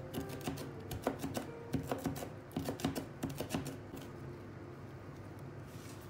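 Chef's knife chopping fresh coriander on a cutting board: quick, irregular knocks of the blade against the board, stopping about three and a half seconds in.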